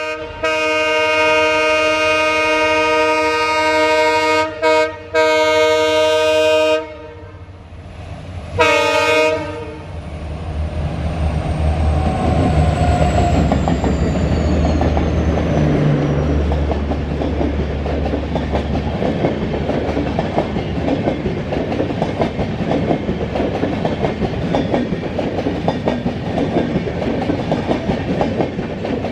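EMD WDP4D diesel locomotive passing at speed: its multi-tone air horn sounds a long blast with two brief breaks, then a short blast. A deep engine rumble follows as the locomotive goes by, and then the passenger coaches clatter past with a steady clickety-clack of wheels over rail joints.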